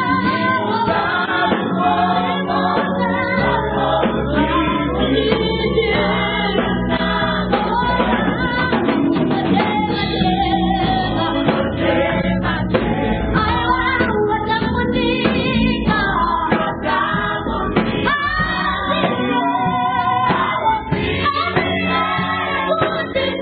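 Mixed choir of men and women singing a gospel song together, over a band with keyboard and bass guitar.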